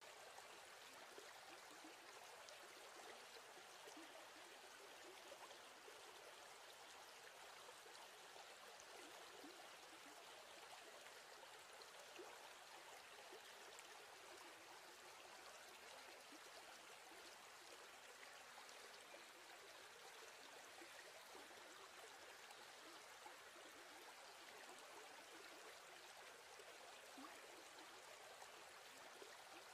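Near silence: a faint, steady hiss with no distinct events.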